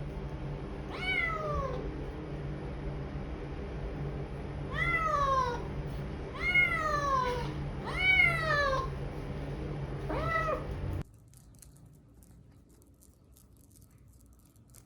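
Kitten meowing five times, each meow falling in pitch, over a steady low hum that cuts off suddenly after about eleven seconds.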